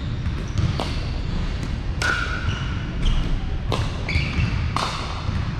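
Pickleball play: sharp pops of paddles striking the plastic ball, about five at irregular spacing, with short squeaks of sneakers on the hardwood floor over a steady low rumble of the hall.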